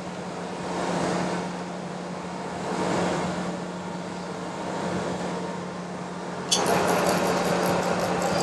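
OD (cylindrical) grinder running: a steady motor hum under a wash of noise that swells and fades about every two seconds. About six and a half seconds in, a sudden louder and brighter noise comes in and holds steady.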